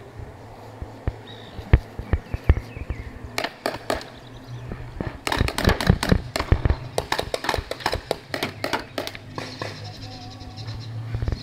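Paintball markers firing: scattered single pops, then a rapid volley of shots about five to seven seconds in, with more pops after it.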